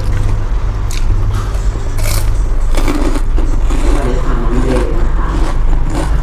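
Close-miked eating sounds: chewing a mouthful of boat noodles with shrimp, then wooden chopsticks scraping and picking through the noodles in the bowl, with a few sharp clicks. A steady low hum runs underneath.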